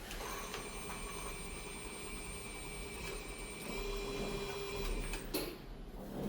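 A small electric motor runs with a steady whine for about five seconds, then stops with a short knock.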